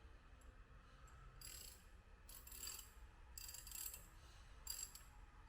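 A ratchet wrench clicking faintly in four short runs about a second apart as a bolt is tightened.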